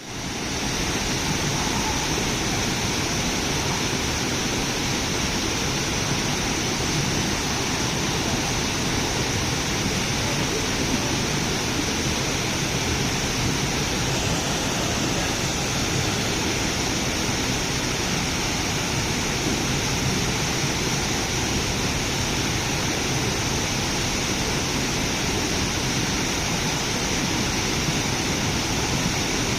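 Steady, unbroken rushing noise with a brighter hiss high up, fading in at the very start and then holding level.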